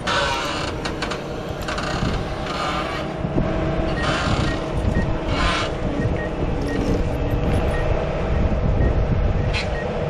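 Case TV450 skid steer's diesel engine running steadily under load, with short bursts of hissing noise every second or two.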